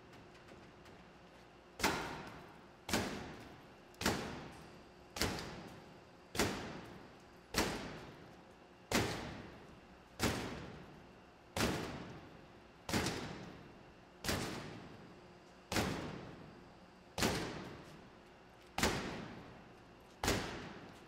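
About fifteen heavy thuds, one every second or so, starting about two seconds in: a glass door pane being kicked over and over. The pane is already crazed with cracks but stays in its frame, held together by 3M security window film.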